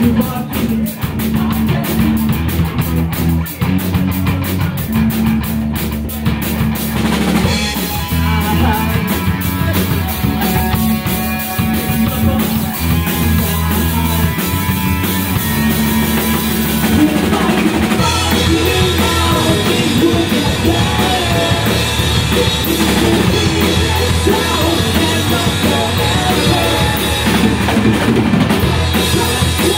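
Punk rock band playing live: drum kit, electric guitar and electric bass through amplifiers, with a lead singer. Fast, hard drum strokes stand out in the first several seconds.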